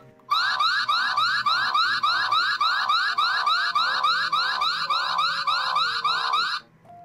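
Electronic alarm siren from a toy cash-truck piggy bank: a fast, repeating rising whoop, about three to four a second, that cuts off suddenly near the end. It is the bank's alarm set off by wrong password entries on its keypad.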